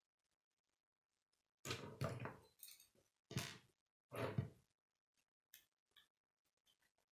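K'nex plastic rods and connectors being handled and fitted together on a wooden tabletop: a few short plastic clatters and knocks about two seconds in, then scattered light clicks.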